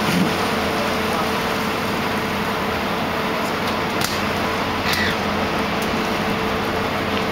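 Steady noise of a boat's engine running, mixed with wind and water, with a low hum throughout and a couple of brief clicks about four and five seconds in.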